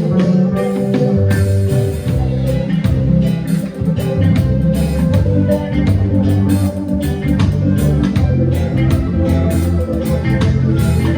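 Live band music: bass guitar and guitar playing a groove over regular drum hits.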